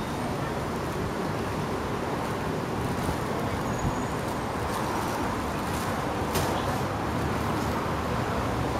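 Street traffic: a steady wash of cars passing, with a few sharp clicks, the loudest about six seconds in.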